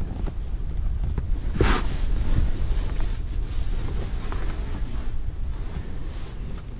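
Gusty wind buffeting the microphone: a steady low rumble with hiss above it, and one brief louder rush of noise a little over a second and a half in.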